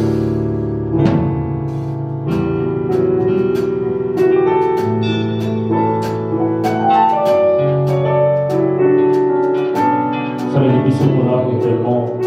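Keyboard, in a piano or electric-piano voice, playing slow sustained chords with a melody line moving over them, as soft worship backing music.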